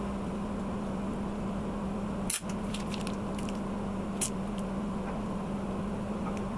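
Steady background hum with a constant low tone. Two faint short clicks, the first about two seconds in and the second about four seconds in.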